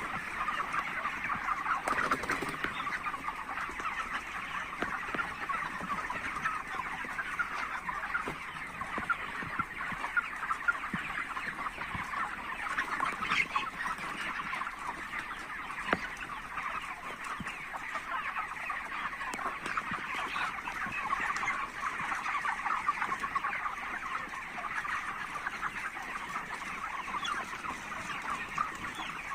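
A flock of chickens clucking and chirping, many short calls overlapping into a continuous chatter.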